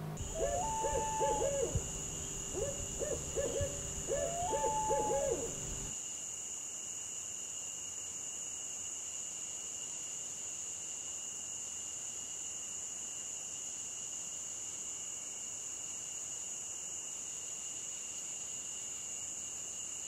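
An owl hooting, two runs of short hoots each with one longer drawn-out note, during the first six seconds. Underneath, a faint steady high-pitched drone of night insects carries on after the hooting stops.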